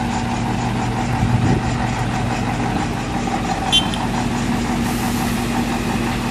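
An engine idling steadily with an even hum, with one short clink a little before four seconds in.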